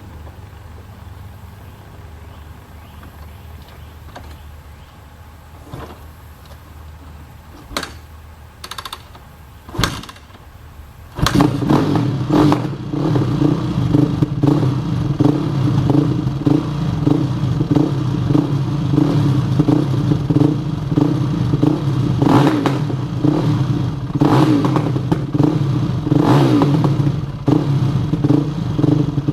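Single-cylinder four-stroke engine of a 2004 Yamaha YZ450F dirt bike. After a few sharp knocks it starts about a third of the way in, then idles and is blipped several times, popping as the revs come back down. The owner takes this for a lean carburetor mixture, getting too much air.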